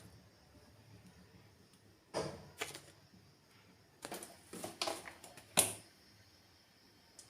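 Dishes or utensils clattering in a kitchen: a few short knocks about two seconds in, then a quick cluster of four between four and six seconds, the last the loudest.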